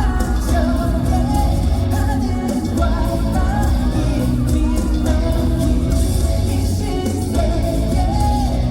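Pop song performed live through an arena PA: a male voice sings a melody over a backing track with a heavy bass beat.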